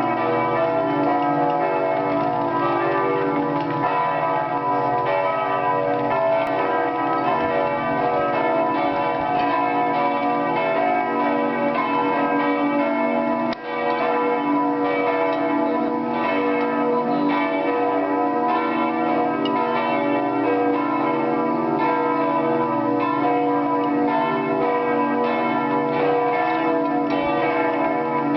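Peal of the Nikolaikirche's church bells in Leipzig, several bells ringing together, their tones overlapping and ringing on.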